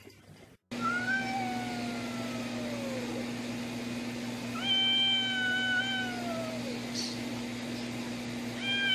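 Cat yowling in long drawn-out calls, three in all, each about two seconds long and sliding down in pitch at its end, over a steady low hum.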